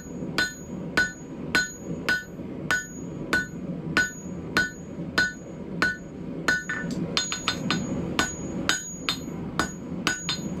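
Hand hammer striking red-hot 10 mm round steel bar on the horn of an anvil, drawing it out thinner: steady blows about two a second, each with a short metallic ring. A few quick lighter taps are mixed in partway through.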